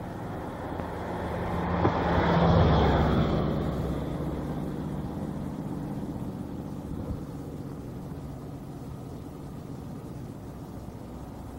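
A road vehicle passes by, growing louder to its loudest about two and a half seconds in, then fading away over the next several seconds, over a steady outdoor background hum.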